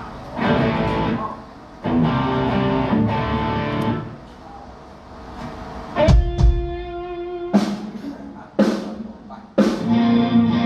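Live band sound check: guitar chords and drum kit hits played in short stop-start bursts with gaps between them. There is a heavy low bass-drum hit with a held chord about six seconds in, then several short stabs and a longer chord near the end.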